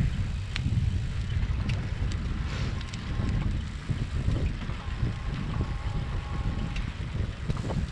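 Wind buffeting a moving microphone: a steady, gusting low rumble, with a few faint ticks.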